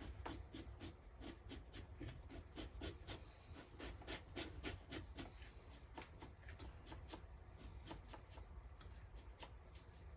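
Victorinox knife blade scraping and cutting fat and gristle off a beaver pelt in quick, short strokes, several a second, faint.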